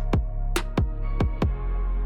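Electronic background music with heavy bass and a fast, steady drum-machine beat.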